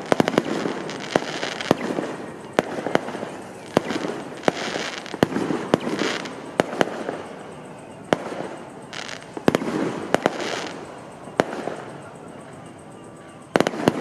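Fireworks going off in quick, irregular succession: sharp bangs every second or so over constant crackling, with a cluster of loud bangs near the end.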